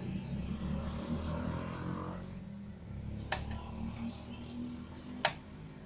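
Sharp clicks from hand tools on a CRT TV's circuit board while its vertical-section filter capacitors are being replaced: two close together about three seconds in and another a little after five seconds, over a steady low background hum.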